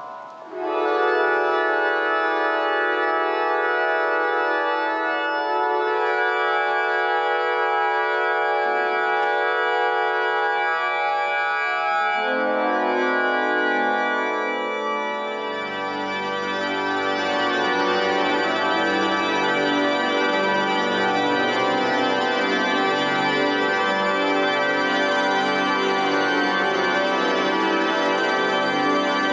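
Organ playing long sustained chords. About a second in a chord starts, more notes enter about twelve seconds in, and bass notes join about fifteen seconds in, thickening it into a dense, full chord.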